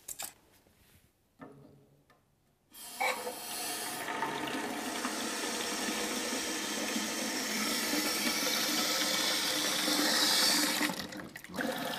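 Water rushing steadily through a newly fitted float valve into a WC cistern, refilling it once the supply is turned back on. It starts about three seconds in and tails off near the end.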